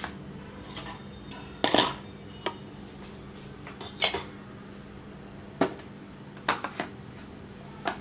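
Kitchen bowls and utensils being handled: a scattering of separate sharp clinks and knocks, about seven in all, the strongest a double knock about two seconds in and another about four seconds in.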